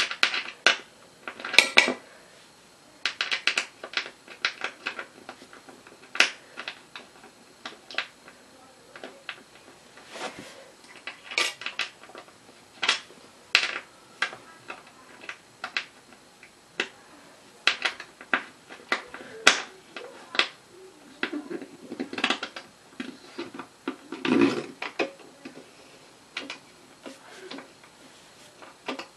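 Small metal bolts and an Allen hex key clinking and tapping against the steel mounting plate of an office chair seat as the bolts are fitted, in irregular sharp clicks, with a duller rustle a little past the middle.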